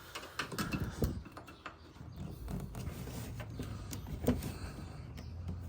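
Scattered light knocks and clicks as a car bumper is wiggled and shifted on its brackets, which have a lot of play. A low steady hum comes in about halfway through.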